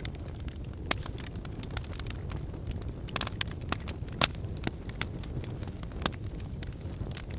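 Wood fire crackling in a fireplace: irregular sharp pops and snaps over a steady low rumble of flame, with one louder pop about four seconds in.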